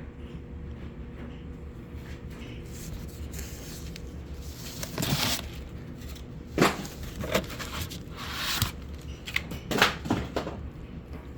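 Unboxing handling noises: a run of scrapes, rustles and sharp knocks, starting about five seconds in, over a steady low hum.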